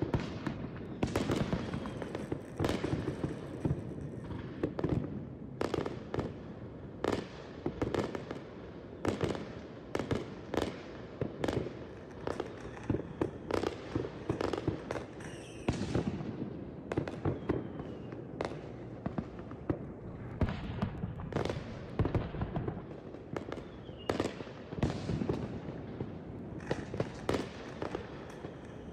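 Fireworks going off in an irregular, nearly unbroken run of sharp bangs, often several a second.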